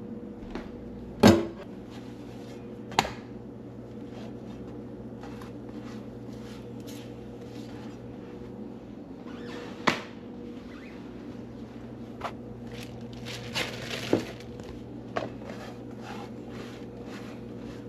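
Scattered knocks and clacks of kitchen utensils and dishes being handled and set down on a counter, the loudest about a second in, over a steady low hum.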